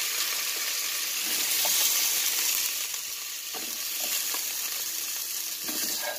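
Pork chops sizzling in hot oil in a frying pan, a steady hiss throughout. A few light knocks come from wooden tongs on the pan as the chops are lifted out.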